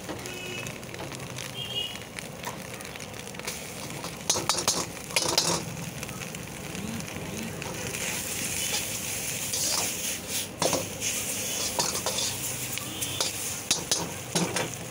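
Noodles stir-frying and sizzling in a hot black wok, tossed with a long steel ladle. The ladle scrapes and clatters against the wok several times, most sharply a few seconds in and again about eleven seconds in, and the sizzle grows louder in the second half.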